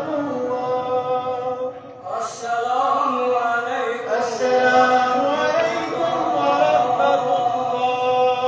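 A man's voice chanting in long, drawn-out held notes, with a short break about two seconds in.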